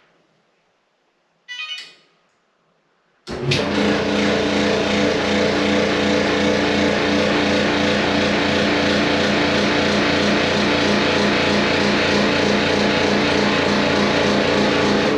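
Electrolux clothes dryer starting up and running loudly, a steady hum with strong tones and a fine pulsing rhythm, then stopping abruptly at the end; a short tone sounds first, about a second and a half in. The loud noise persists with new drum support rollers and good bearings, and the owner traces it to a scratched blower wheel.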